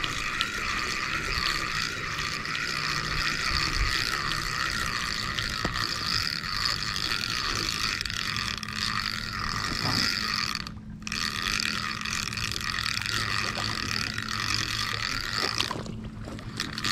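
Shimano Sienna spinning reel being cranked fast as a hooked fish is reeled in: a high gear whine that wavers with each turn of the handle, about four times a second. It breaks off briefly about eleven seconds in and stops near the end as the fish reaches the bank.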